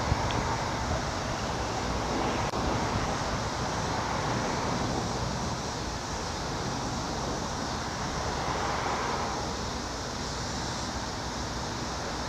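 Drone of a Cessna 172S Skyhawk SP's four-cylinder Lycoming IO-360 piston engine and propeller as the plane flies away, fading slightly toward the end, under a steady wash of wind and road traffic noise.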